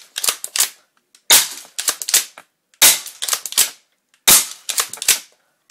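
Bison C501A airsoft pump-action shotgun fired four times, about one and a half seconds apart, each sharp snap followed by a short rattle of clicks.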